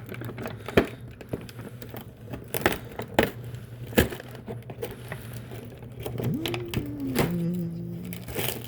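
Cardboard advent calendar door being pushed in and torn open, with its contents handled: a run of sharp cracks and crinkles, the loudest about a second in and again about four seconds in. Near the end a voice gives a short two-note hum.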